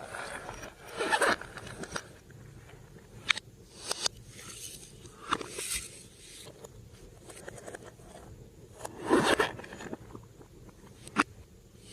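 Glossy slime being stretched and squished by hand, making sticky crackling and scraping noises in several bursts, the loudest about a second in and about nine seconds in, with a few sharp clicks in between.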